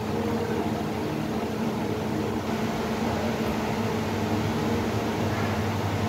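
Panasonic Inverter microwave oven running a heating cycle, a steady hum with a deeper tone swelling near the end. The oven runs but does not heat: its inverter power board, with H98 error, is not driving the magnetron, which the technician takes for a failed inverter supply.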